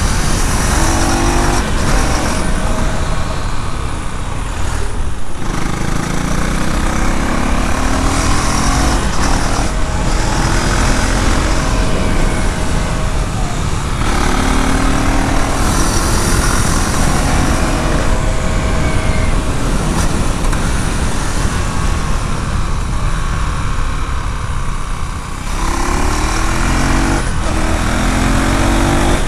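2024 KTM 390 Duke's single-cylinder engine and exhaust under way, its note rising in pitch several times as it pulls and dipping briefly between pulls, over steady wind rush.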